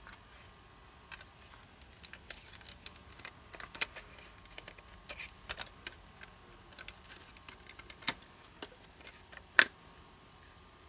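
Scattered plastic clicks and clacks as the case of a PS4 N14-200P1A power supply is pried open by hand and its circuit board lifted out, with two louder knocks, one about eight seconds in and the loudest near the end.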